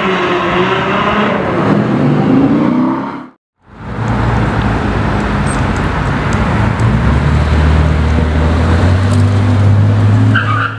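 Ferrari 812 Superfast's V12 pulling away, its note gliding up and down. After a brief cut, a classic Porsche 911's flat-six passes at low speed with a steady low drone that grows stronger in the second half.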